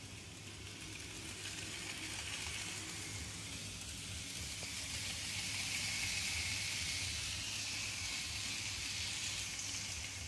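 N-scale model train, a Kato Pocket Line steam locomotive pulling Tomix freight wagons on Tomix Super-mini track, running with a steady high whirring hiss of its small motor and wheels on the rails. It grows louder around the middle as the train passes close.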